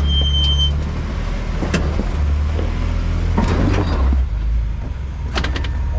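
Off-road vehicle's engine running at low revs, a steady low drone, with scattered knocks and rattles from the vehicle. A high beep-like tone stops just under a second in.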